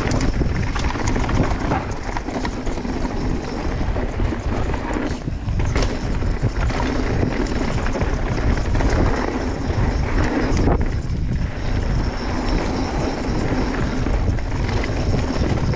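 Mountain bike riding down a rocky trail: wind buffeting the camera's microphone, mixed with the tyres and bike rattling over rock.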